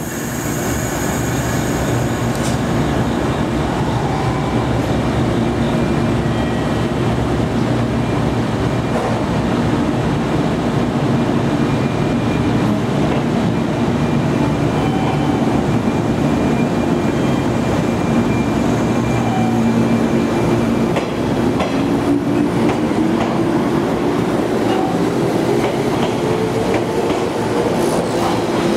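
JR Kyushu 415 series steel-bodied AC/DC electric multiple unit running: a loud steady rumble of wheels and running gear, with a motor whine that rises in pitch over the last several seconds as the train picks up speed.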